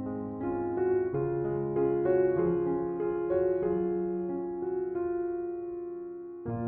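Background music: a gentle piano melody over sustained keyboard chords.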